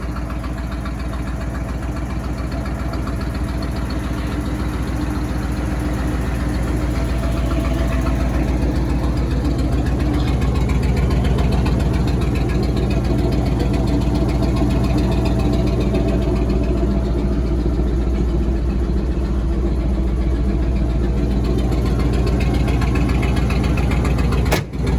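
Flathead V8 of a 1946 Ford truck idling steadily and smoothly, growing a little louder over the first several seconds.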